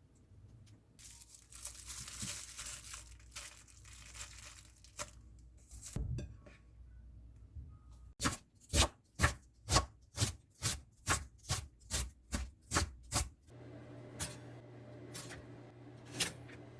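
Paper or wrapping rustling and crinkling, then a knife chopping on a cutting board in a steady run of about a dozen sharp strokes, roughly two and a half a second, before quieter handling sounds near the end.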